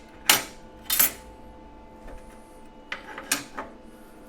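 Laser-cut steel plate parts being handled and set against each other, clinking: two sharp metal knocks in the first second, then a few lighter clicks near the end.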